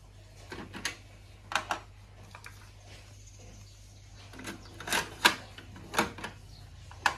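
Clicks and clunks from a Sony MHC-VX55 mini hi-fi's cassette deck and front-panel buttons: the deck door opened, a cassette tape put in and the door shut, with the loudest clunks in the second half. A low steady hum runs underneath.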